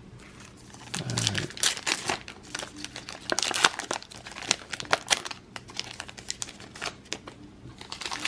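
Plastic wrapper of a baseball card pack being torn open and crinkled: a dense run of crackling for a few seconds, then sparser rustles as the cards come out.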